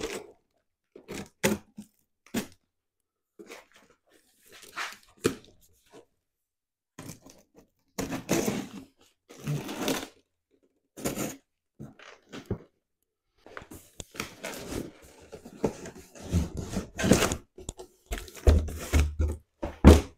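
A cardboard shipping box being cut open with a utility knife and handled: packing tape slit and torn, cardboard scraping and crinkling as the box is turned over and its flaps pulled open. A few heavier thumps come near the end.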